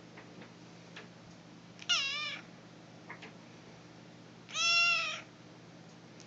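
A cat meows twice: a short, wavering meow about two seconds in, then a longer, louder one near the five-second mark.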